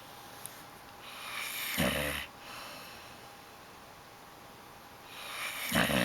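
Dog snoring: two snores about four seconds apart. Each is a breathy sound that swells for about a second and ends in a brief, louder, lower rattle.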